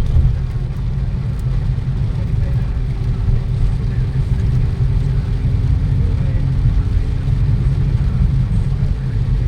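Steady low rumble of a moving road vehicle, with no sudden events.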